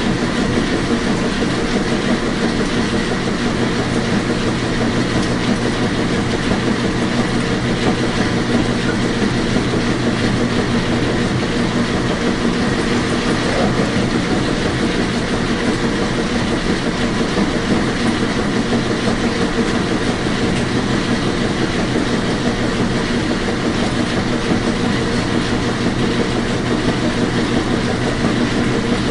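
Washing machine running: a steady hum over an even rushing noise.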